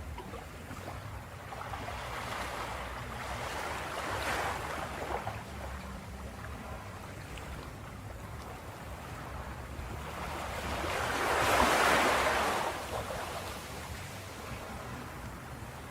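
Ocean waves washing onto a shore over a steady low rumble of surf, with a small wave about four seconds in and a louder wave breaking and washing out around twelve seconds in.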